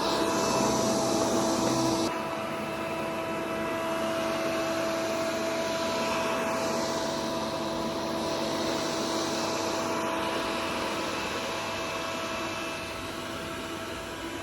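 Robot vacuum cleaner running: a steady motor and suction-fan hum under a rushing hiss. The hiss is louder for the first two seconds and swells again around the middle.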